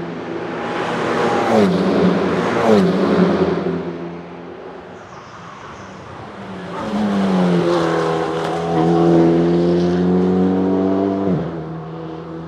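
Race car engines on track at speed. The engine note falls sharply a few times in the first three seconds and then eases off. From about seven seconds in a car accelerates hard, its note climbing steadily, before dropping abruptly about eleven seconds in.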